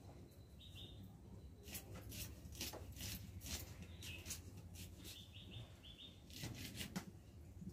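Short, dry scraping and rustling strokes of a knife peeling papery skins off small red onions, coming in a loose series. Birds chirp faintly: a short call about a second in and a quick run of repeated notes a little past halfway.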